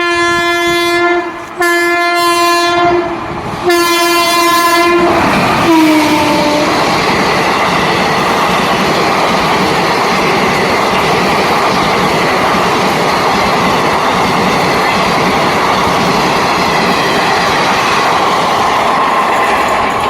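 Express train's locomotive horn sounding in three long blasts, the last dropping in pitch as the locomotive passes, then the train running past at speed, loud and steady.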